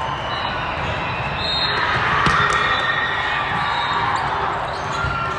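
Volleyball being hit and bounced on a gym court, with one sharp ball strike about two seconds in, over the steady din of a busy sports hall.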